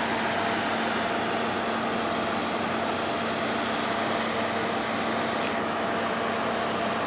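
Steady mechanical roar with a constant low hum, unchanging throughout.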